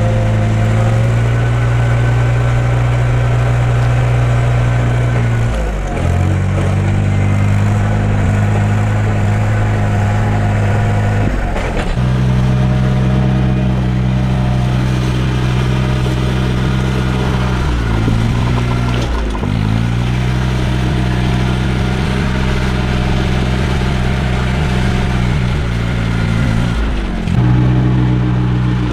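Restored truck's engine running steadily under load, its pitch dipping sharply and picking back up about four times.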